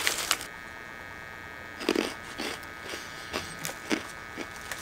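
A few short, soft crunches of a crunchy snack being chewed, scattered through the second half, over a steady electrical hum.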